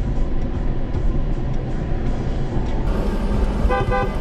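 Steady road and engine rumble of a car heard from a dashcam, then near the end a car horn honks in a few quick short beeps.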